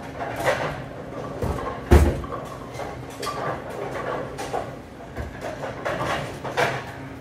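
Bowling pins and pinsetter machinery clattering, a string of knocks with one heavy thud about two seconds in.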